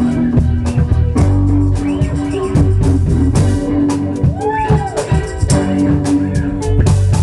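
Live reggae band playing, with guitar and drum kit over a steady beat. A brief note bends up and back down about halfway through.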